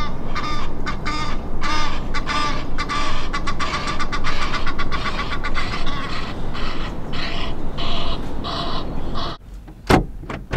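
Many birds calling harshly over and over, their calls overlapping thickly. The calling cuts off abruptly about nine seconds in, leaving quiet, then one or two sharp clicks near the end.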